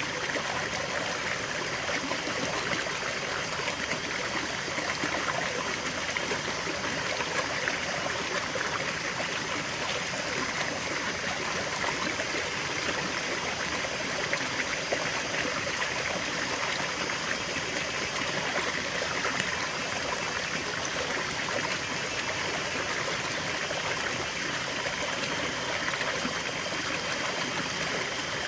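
Small stream of water trickling and gurgling steadily over stones.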